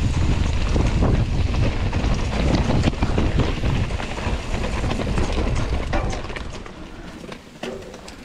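Mountain bike riding fast down a dirt trail: wind buffeting the microphone over the rumble of tyres on the ground, with frequent rattles and knocks from the bike over bumps. It eases off over the last couple of seconds.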